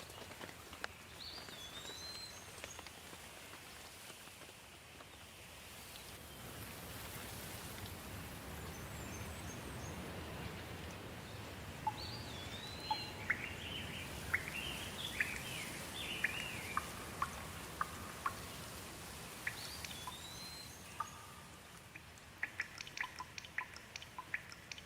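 Steady rain with birds calling over it: a swooping whistled note that comes three times, and a busy burst of chirps in the middle. Near the end, a quick run of short clicks.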